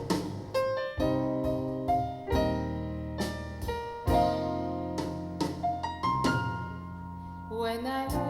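Piano music played back over loudspeakers driven by an Elekit TU-8900 2A3 valve amplifier: single notes and chords struck one after another and left to ring away.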